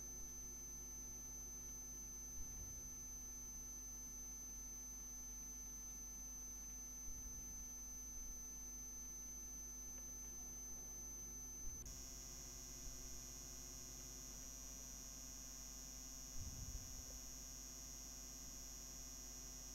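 Faint steady electrical hum and a high-pitched whine from the recording setup. About two-thirds of the way through, the whine drops a little in pitch and grows stronger. A few faint soft thumps fall in between.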